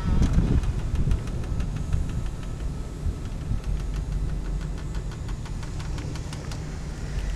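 John Deere 4045 four-cylinder diesel of a generator set running steadily, a constant low drone with a light rapid ticking over it.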